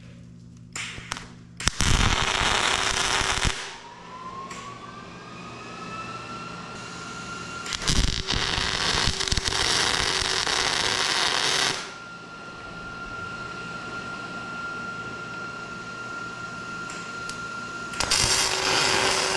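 Electric arc welding on a steel excavator bucket: three runs of crackling, sputtering arc, one of about two seconds, one of about four seconds in the middle, and a third that starts near the end. A thin steady whine fills the gaps between the welds.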